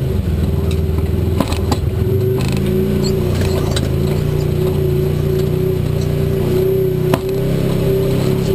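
Side-by-side UTV engine running steadily at low speed over a rocky trail, with a few sharp knocks; the loudest comes about seven seconds in.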